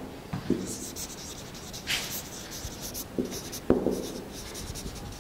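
Dry-erase marker writing on a whiteboard: short scratchy, squeaky strokes with a few light taps of the marker on the board.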